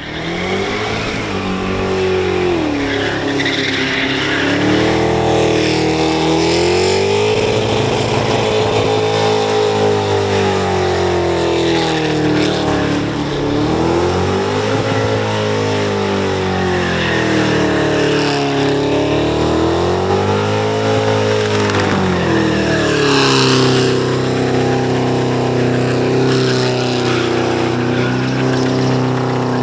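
Holden Commodore burnout car's engine held at high revs, its pitch rising and falling in slow waves every few seconds, over the squeal and hiss of the rear tyres spinning on the pad. For the last few seconds the revs hold steadier.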